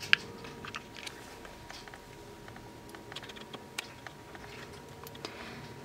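A few scattered faint clicks of laptop keys, the sharpest right at the start, over a faint steady hum.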